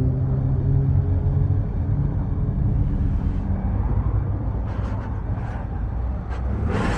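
Car engine idling nearby, a steady low note with even harmonics that eases slightly about four to six seconds in.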